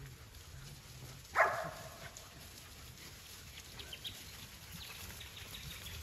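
A dog's single short bark about a second and a half in, followed by faint scattered ticks.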